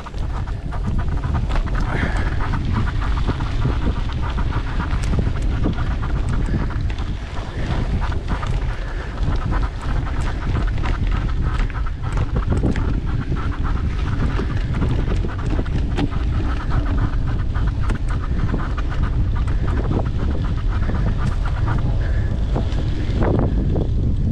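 Mountain bike riding over a dirt trail: wind buffeting the microphone as a steady low rumble, with constant small clicks and knocks from the bike rattling over the ground.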